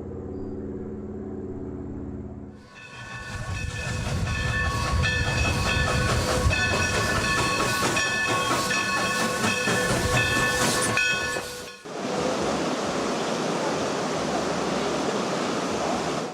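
A sequence of separate sound effects with abrupt cuts. First a steady low hum, then a loud rumbling, clattering noise with several steady high whining tones over it, then a steady hiss.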